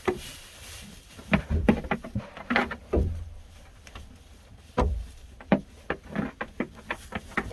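A run of irregular knocks and clatters, about a dozen over several seconds, some with a dull thud beneath them.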